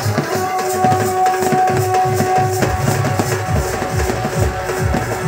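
Live folk dance music for the naagin dance: a large stick-beaten drum keeps a fast, even rhythm under a melody of long held notes. The low drum thumps get heavier about halfway through.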